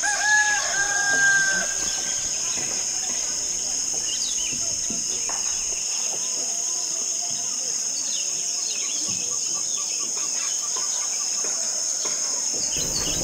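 A steady high-pitched insect drone, with a rooster crowing once in the first two seconds and scattered short bird chirps.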